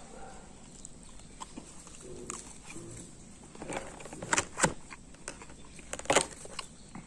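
A person chewing beef jerky and sticky rice with the mouth closed, with a few sharp, loud mouth smacks a little over four seconds in and again about six seconds in.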